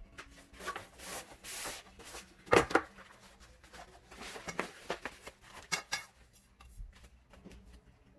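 Plastic shoe-rack tubes and connectors being handled and fitted together: scattered clicks and knocks with short rustles, the loudest a pair of sharp knocks about two and a half seconds in.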